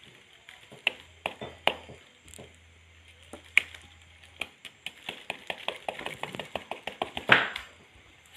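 Quick irregular clicks and crackles of a papery wasp comb being picked apart to get at the pupae. They come faster in the second half and peak in a loud crackle near the end.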